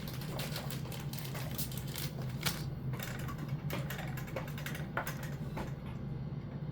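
Irregular light clicks and rattles of small parts being handled, over a steady low hum; the clicks stop near the end.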